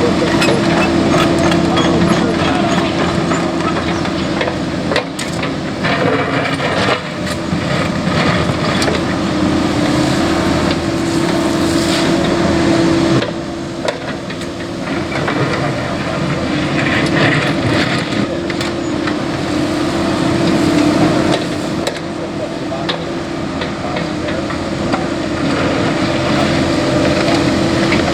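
CAT 308E mini excavator at work: the diesel engine and hydraulics run with a steady whine, while the bucket knocks and scrapes in the road material.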